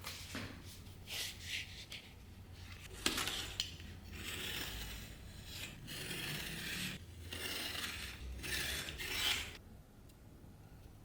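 Hand abrading strokes, a file or abrasive rubbed back and forth over a workpiece, in an uneven run of scraping strokes that stops about nine and a half seconds in.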